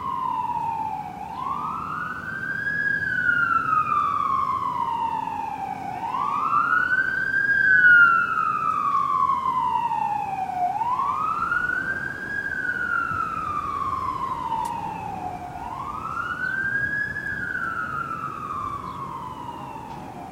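Emergency vehicle siren on wail: each cycle rises quickly in pitch, then falls away more slowly, repeating about every four to five seconds.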